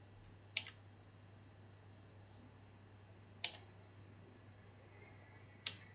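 Three faint computer-mouse clicks a couple of seconds apart over a low steady hum, otherwise near silence.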